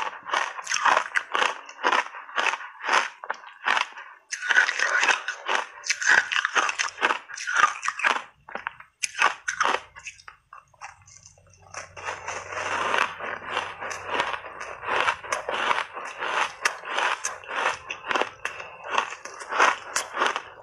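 Ice chunks coated in matcha powder being bitten and crunched in the mouth: rapid, crisp crunches that stop briefly about halfway through, then start again with a new bite.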